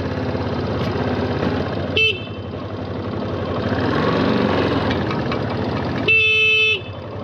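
Motorcycle horn sounded twice, a short toot about two seconds in and a longer honk near the end, to move cattle off the track, over the motorcycle engine running underneath.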